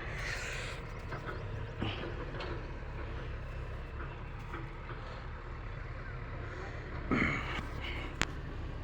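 Steady low rumble of an excavator's diesel engine running, with a brief louder noise about seven seconds in and a sharp click just after.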